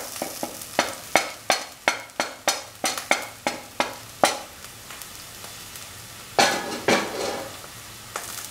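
Shallots and spices frying in oil in a pan, with a steady sizzle. For the first four seconds a run of sharp taps, about three a second, sounds over it; a louder rush of frying or scraping comes about six and a half seconds in.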